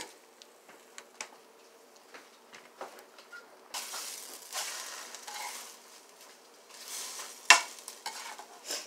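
Egg sizzling in a frying pan while a slotted spatula scrapes and taps against the pan to turn it, the sizzling swelling twice in the middle as the egg is moved. One sharp tap of the spatula on the pan about three-quarters of the way through stands out as the loudest sound.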